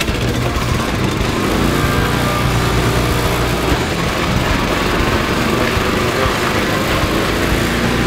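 Small petrol engine of a wood chipper running steadily while the chipper shreds whole skipjack and albacore tuna into burley.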